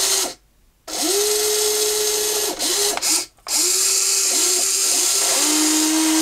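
Electric motors and gearboxes of a metal 1:14 RC excavator (WLtoys 16800) whining as its functions are worked by remote in a series of short runs. Each run rises in pitch as it speeds up and drops as it stops, with a brief pause about half a second in and a longer steady run starting near the end.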